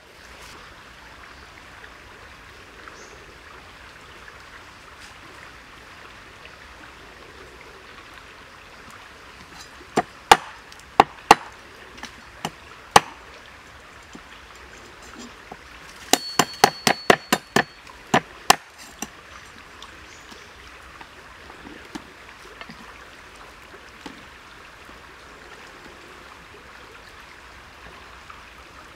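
Cleaver chopping through black chicken on a wooden chopping block: about six separate sharp chops a third of the way in, then a quick run of about ten chops a little past the middle, over a steady background hiss.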